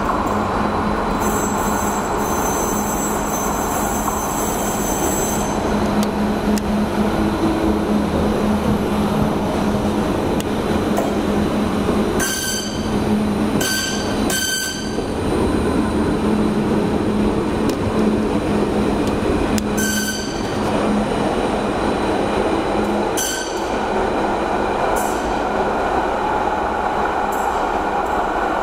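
Stadler Variobahn light-rail tram passing through a tunnel: steady rumble of steel wheels on rail with a constant hum, a thin high whine in the first few seconds, and brief high-pitched wheel squeals several times around the middle as it goes by.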